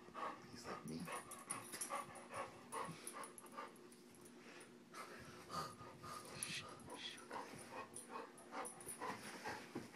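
English mastiff puppy panting in short, irregular puffs while it clambers on a plush rocking horse.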